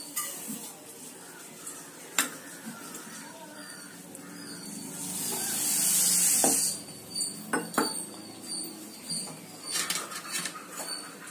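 Sugar and then water going into a metal pan on a gas stove for sugar syrup: a few clinks of a steel bowl and tumbler against the pan. About five seconds in, water poured from the tumbler makes a rising hiss, the loudest sound, which stops suddenly, followed by more clinks.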